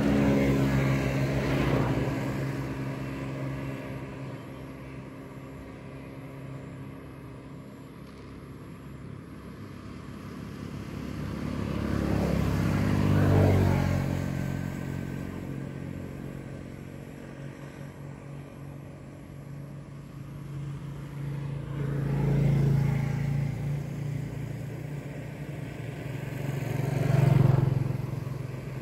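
Motor vehicles passing one after another, each engine sound swelling and fading away, with a low engine hum between passes; the loudest passes come about halfway through and again near the end.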